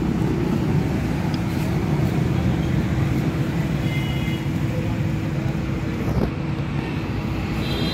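Steady street and traffic noise with a constant low hum underneath.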